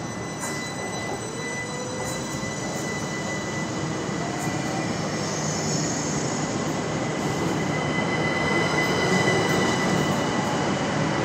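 Southern electric multiple unit pulling away from the platform: a motor whine rising in pitch early on, over wheel and running noise that grows steadily louder, with a few steady high tones.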